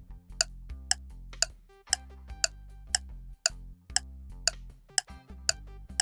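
Quiz countdown timer sound effect: a clock-like tick-tock, about two sharp ticks a second, over a low, steady music bed.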